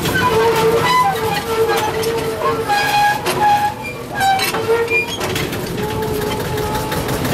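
Small narrow-gauge locomotive running with a low drone, its wheels squealing against the rails on a tight curve: a string of short high squeals that shift up and down in pitch.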